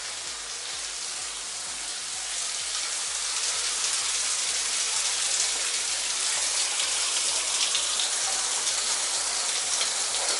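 Timed push-button shower running, its spray hissing steadily down against the tiles; the sound grows a little louder about three seconds in.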